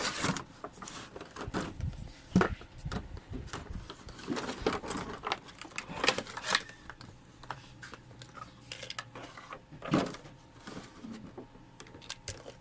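Toy packaging being opened by hand: irregular rustling, crinkling and tearing of cardboard and plastic, with sharper knocks and clicks of plastic parts, the loudest about 2.4, 6 and 10 seconds in.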